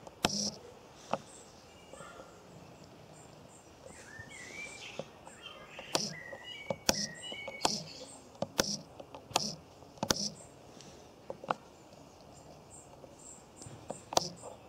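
A miniature toggle switch flicked back and forth, giving a series of sharp, irregularly spaced clicks, with a short whir from a small hobby servo swinging its arm after several of the flicks. Birds chirp in the background between the clicks.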